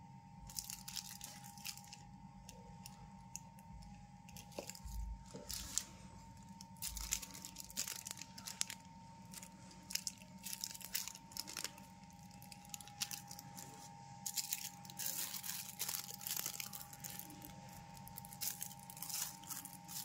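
Small clear plastic bag crinkling and rustling as it is handled, in irregular bursts of crackles, over a faint steady hum.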